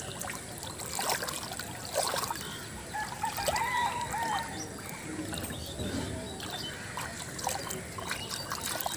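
Pond water trickling and splashing, with many small splashes and clicks throughout. A short bird call sounds about four seconds in.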